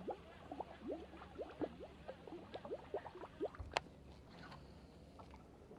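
Small water plops: a string of short bloops, each rising in pitch, two or three a second for about three and a half seconds, then a single sharp click.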